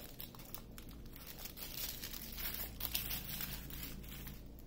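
Small plastic bags of diamond painting drills crinkling softly and irregularly as a handful of them is handled and laid down on a table.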